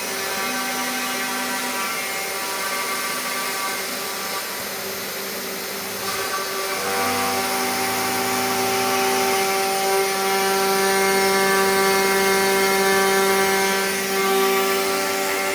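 Homemade CNC router milling 3 mm plywood: the 500 W spindle runs with a steady whine, and a set of lower tones switches on and off and changes pitch as the machine moves. It gets louder from about seven seconds in.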